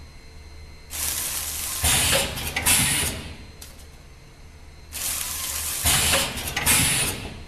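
Samfull Q1-520 vertical form-fill-seal packing machine running its bagging cycle: a clattering, hissing mechanical sequence about every four seconds, twice here, as the film is drawn down and the jaws seal and cut each bag, over a steady low machine hum.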